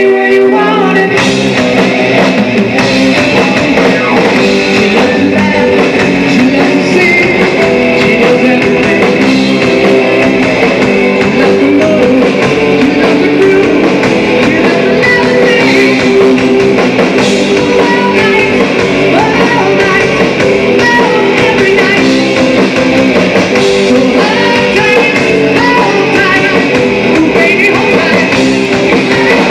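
A hair-metal rock band playing live and loud: electric guitar and drum kit with a voice singing. The full band comes in about a second in.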